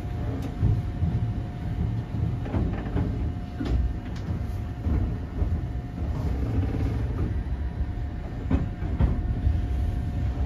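Eizan Electric Railway train running, heard from inside the front car: a continuous low rumble of wheels on rail with a few sharp clacks at intervals and a faint steady tone.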